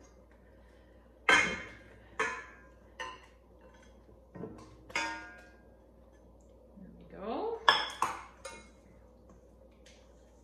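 A stirring utensil and saucepan clinking against a stainless steel mixing bowl while melted butter is stirred into wet muffin batter. About six irregular metallic clinks with short ringing; the loudest comes about a second in, with another cluster near eight seconds.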